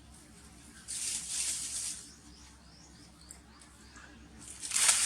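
Baby monkey squealing: two harsh, high-pitched cries about a second each, one near the start and one near the end, with faint short chirps in between.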